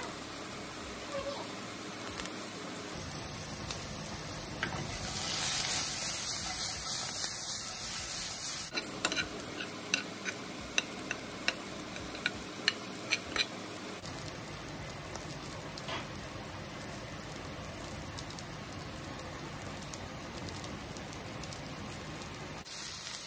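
Diced potatoes sizzling in hot oil in a cast-iron skillet, a steady hiss that grows louder about five seconds in. From about nine to thirteen seconds in, a metal spoon stirring the potatoes clicks sharply against the pan about ten times.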